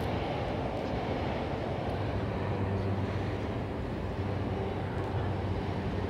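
A steady low engine hum over a background rush, holding its pitch without a change.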